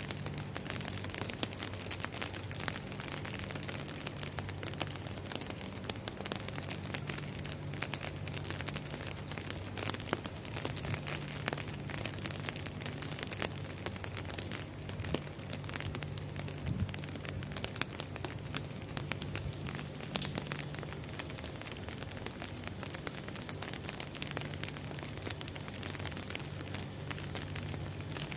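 Heavy rain falling steadily, a dense patter of drops striking glass panes, with a faint low hum underneath.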